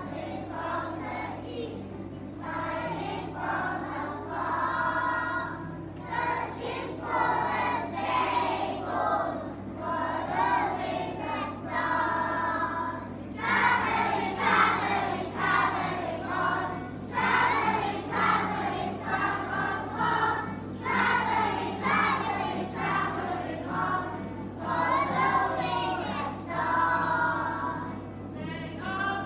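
A large group of young children singing a song together as a choir, in phrases with short breaks between them.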